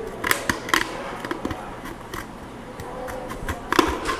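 Thin plastic PET soda bottle crackling and clicking as it is handled, with irregular sharp crackles that are loudest near the end.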